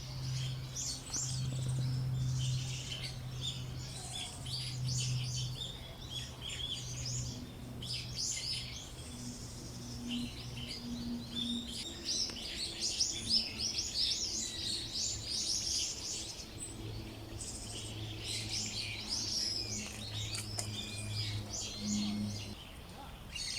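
Many small birds chirping and twittering at once, a dense overlapping chorus of short high calls, over a faint steady low hum.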